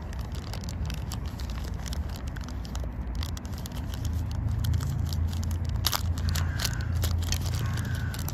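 Thin pink plastic wrapping being crinkled and torn open by hand: a run of small crackles and rustles. A steady low rumble underneath grows stronger about four seconds in.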